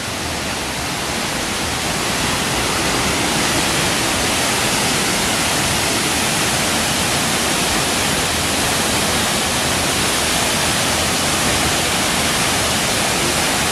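Waterfall: a loud, steady rush of falling water that builds a little over the first couple of seconds, then holds even.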